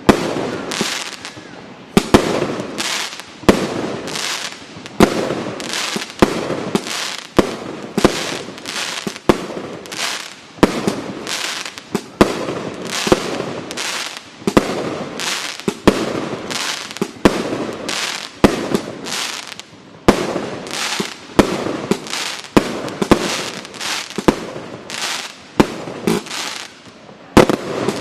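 Thrillseeker multishot firework cake firing shot after shot, about two a second, each a sharp bang trailed by a short hiss, with a brief pause shortly before the end.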